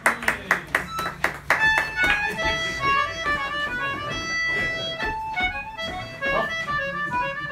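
A quick run of sharp taps, about six a second, for the first second and a half, then an accordion playing a lively folk dance tune in held notes.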